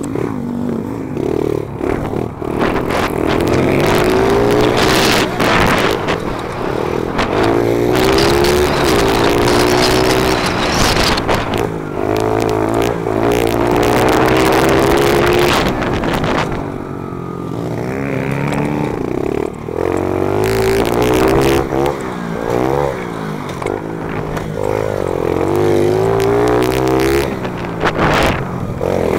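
Small four-stroke pit bike engine with an FMF exhaust pipe, ridden hard: the revs climb on each straight and drop off into the corners several times over, with wind buffeting and rattle on the helmet-mounted camera.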